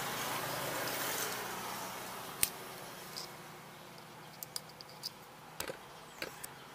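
Small sharp plastic clicks and taps from a bulb socket and its wire connector being handled. One louder click comes about two and a half seconds in, and a quick run of lighter clicks follows near the end, over a background hiss that fades in the first few seconds.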